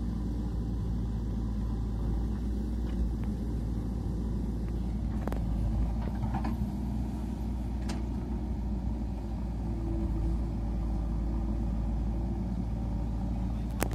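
Diesel engine of a JCB 3DX backhoe loader running steadily as it digs and loads soil, a continuous low rumble. A few sharp knocks stand out briefly, about five and eight seconds in and again at the very end.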